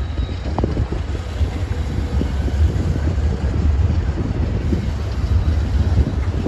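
Wind buffeting the microphone over the low rumble of a slow-moving BNSF freight train and its GE diesel locomotives.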